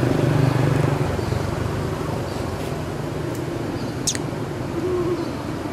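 Steady low rumble of outdoor background noise, with one short high chirp that falls quickly in pitch about four seconds in.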